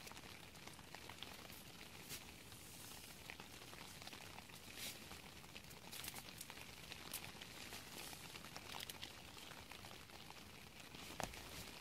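Light rain pattering on the tent fabric, a faint steady hiss dotted with many small, sharp drop ticks, along with the soft rustle of a food packet being handled.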